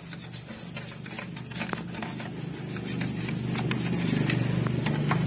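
Toothbrush scrubbing inside a petrol-soaked plastic throttle body, giving short scrapes and clicks. Under it a steady vehicle engine hum runs throughout and grows louder in the second half.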